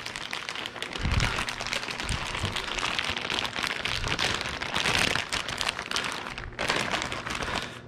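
Plastic packaging crinkling and rustling as the replacement dishwasher detergent dispenser is unwrapped and handled, with a dull knock about a second in.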